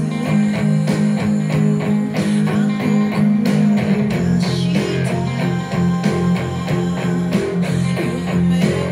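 Electric guitar playing a rock riff over a backing track with drums and sustained bass notes.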